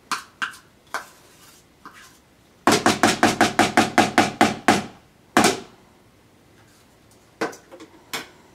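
Plastic measuring cup rapped quickly against a plastic bowl to knock out sticky peanut butter: a run of about a dozen sharp knocks at roughly six a second, then one more. Lighter clicks of the cup and bowl come before and after.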